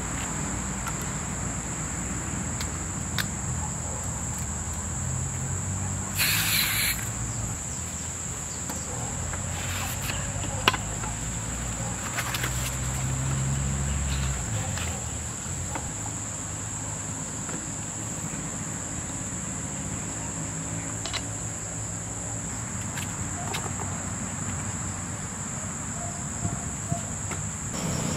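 Steady, high-pitched chirring of insects, with a brief rustle about six seconds in and a few sharp clicks, the loudest about ten seconds in.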